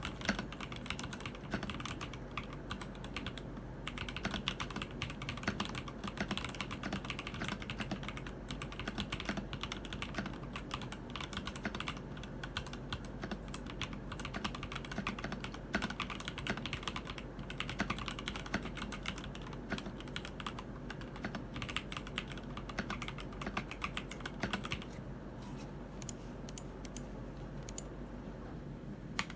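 Keydous NJ80 mechanical keyboard with TTC Speed Silver linear switches, typed on continuously in a rapid clatter of keystrokes. About 25 seconds in the sound changes, with sparser, more separate key clicks and less treble hiss.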